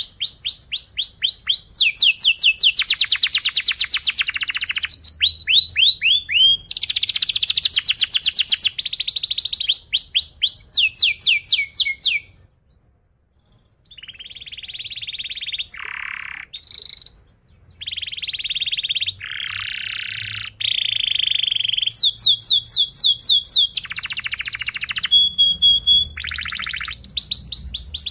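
Domestic canary singing a long, loud song of fast rolled trills and runs of rapid sweeping chirps, with a short pause about halfway through before the song resumes with buzzier held phrases.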